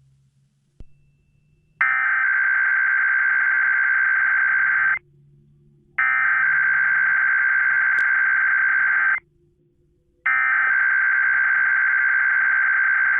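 Emergency Alert System SAME header: three bursts of digital data tones, each about three seconds long with about a second's gap between them. The header encodes a Required Weekly Test alert.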